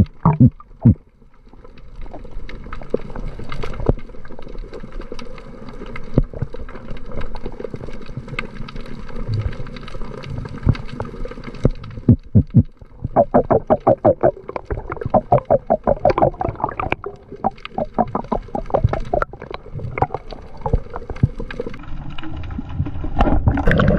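Underwater sound picked up by a camera below the surface: a muffled low rumble of water moving past, broken by scattered clicks and knocks, with a fast run of clicks in the middle.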